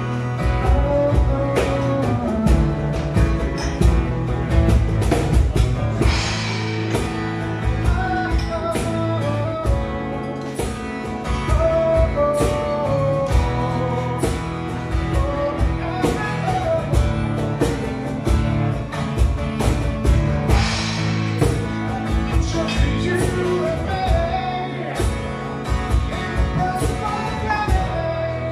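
Live acoustic music: a man singing into a microphone while strumming a steady rhythm on an acoustic guitar.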